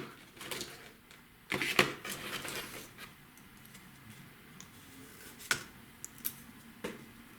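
Fireworks being handled: a burst of rustling and rattling about a second and a half in, then a few scattered sharp clicks and taps.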